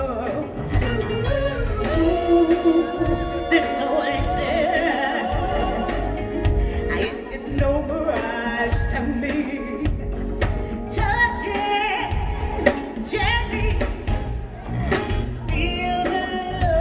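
A woman singing an R&B/soul song with a live band through a concert sound system: long, wavering held notes and vocal runs over electric guitar and a steady bass and drum beat.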